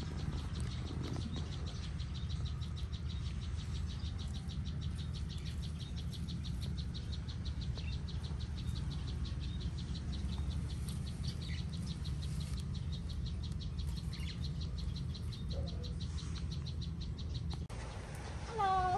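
Insects chirping in a fast, even pulse, over a steady low rumble; the chirping cuts off suddenly near the end.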